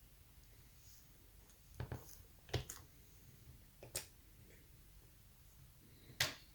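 A few light clicks and taps from small objects being handled, some in quick pairs, about two, four and six seconds in, over a faint room hush.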